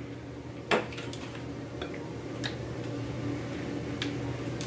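Small clicks and taps of kitchen items being handled, one sharp click about three-quarters of a second in and a few fainter ticks after, over a steady low hum.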